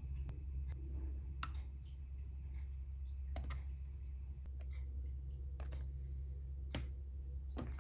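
About ten sharp, irregular clicks and taps from fingers pressing the side power button of a Qolsys IQ4 security panel and tapping a tablet's touchscreen, over a steady low hum.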